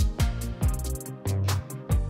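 Background music with a steady beat of drums and bass.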